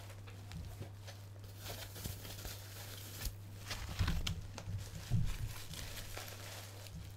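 Bubble wrap crinkling and rustling as wrapped figures are handled, in irregular spells that are loudest about four to five seconds in, over a steady low hum.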